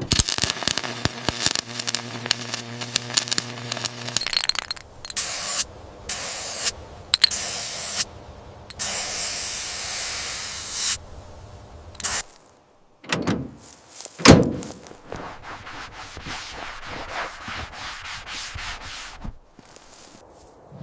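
A quick succession of car-restoration workshop sounds: a power tool running with a steady hum for about four seconds, then several short bursts of hiss that stop abruptly, and a few sharp knocks about two-thirds of the way through.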